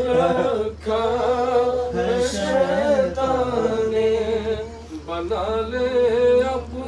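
Unaccompanied male voice singing a naat, an Urdu devotional poem, in long drawn-out melodic phrases with no instruments.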